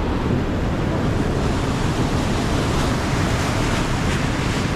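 Waterfall rushing steadily, a loud, even roar of falling water.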